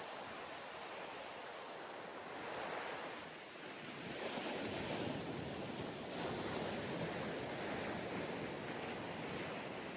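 Ocean waves breaking and washing up a sandy beach, an even rush of surf that swells and eases every few seconds.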